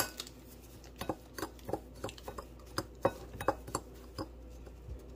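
Metal spoon clinking and scraping against a bowl while stirring a dry spice mix. There is one sharp clink at the start, then lighter irregular clinks two or three a second, which die away near the end.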